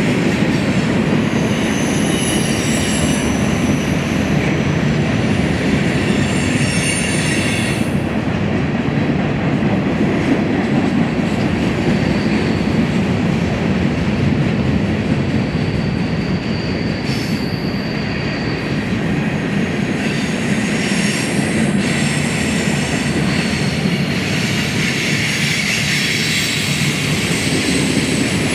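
BNSF freight train cars rolling past on steel rails: a steady rumble with high-pitched wheel squeal. The squeal fades out about a third of the way in and returns for the last third.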